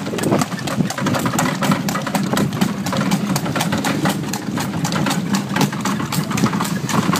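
Horse-drawn cart moving along a paved street: a dense, continuous clatter of clicks and knocks from the wheels, hooves and harness over a steady low hum.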